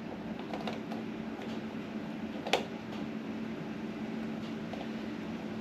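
A phone in its case being pressed and twisted against a Quadlock handlebar mount with a vibration dampener, faint handling noise and one sharp click about two and a half seconds in, the phone not locking in. A steady low hum runs underneath.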